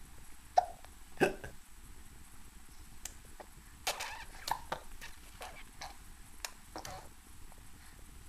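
Baby hiccupping: a string of short, sudden hiccups, the loudest about a second in, with more coming in a cluster through the middle.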